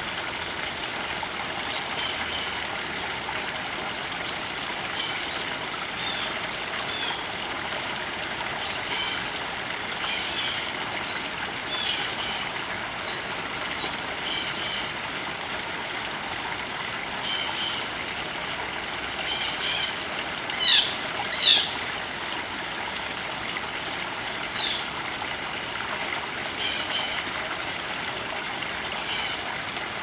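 Small stream trickling and splashing over rocks, steady throughout. Small birds give short high chirps every few seconds, with two loud, sharp calls sweeping down in pitch, about a second apart, roughly two-thirds of the way in.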